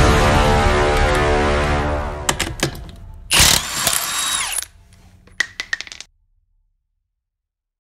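Background music fading out, then a Milwaukee M18 Fuel half-inch cordless impact wrench running for about a second on a wheel lug nut, with a few sharp clicks before and after it.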